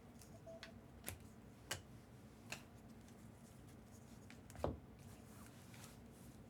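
Faint clicks and taps of trading cards being flipped through and handled, about five in all, the loudest one about two-thirds of the way through, over a quiet room hum.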